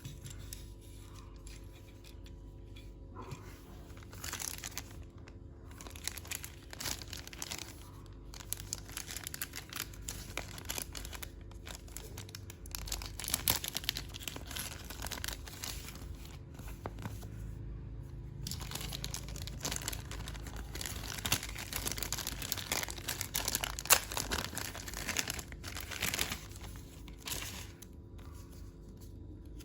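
Plastic toy packaging crinkling and tearing as it is unwrapped, in irregular bursts with a short lull about two-thirds of the way through.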